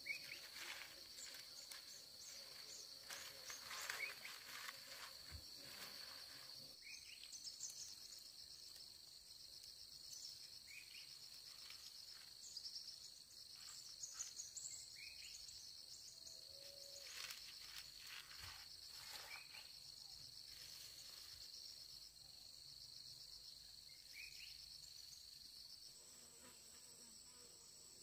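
Faint, steady chirring of insects in the background, with short high chirps on top. Scattered light knocks and rustles come and go, loudest near the start and about a third of the way in.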